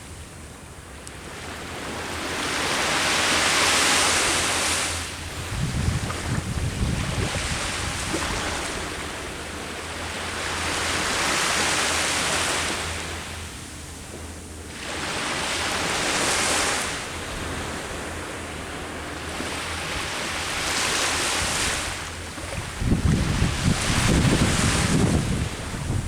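Ocean waves breaking and washing up the shore, each surge rising and falling over a few seconds, four or five times. Wind buffets the microphone in low rumbling gusts about six seconds in and again near the end.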